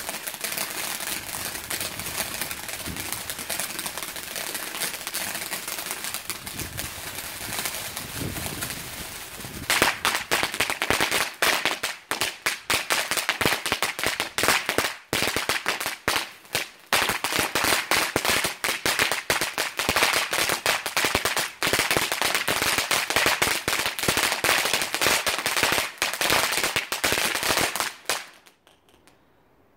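Ghengis Fireworks Mega Eruption fountain firework burning: a steady hiss from its spark jet for about ten seconds, then a louder, dense crackling of many rapid small pops. The crackling stops abruptly near the end as the fountain burns out.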